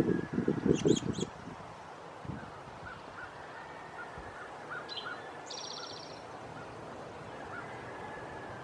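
Wild turkeys give a slow series of short, soft calls, about two a second. A songbird's brief high chirp and a fast high trill come just after the middle. Low rumbling wind or handling noise on the microphone is the loudest sound and stops after about a second.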